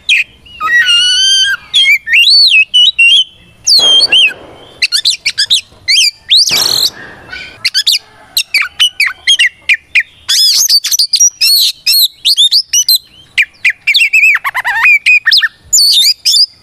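Oriental magpie-robin (kacer) singing a loud, varied song of quick whistled phrases, with notes gliding up and down. Two harsh, rasping notes break in about four and seven seconds in.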